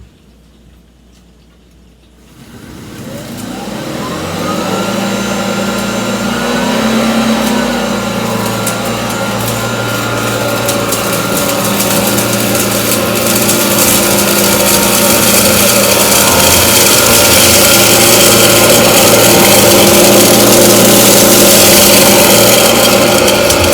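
Hoover ONEPWR cordless stick vacuum starting up about two seconds in, its motor whining up in pitch and then running steadily on low speed. A crackle of small ticks runs over the whir as it sucks up scattered rice, oatmeal and ground coffee from linoleum.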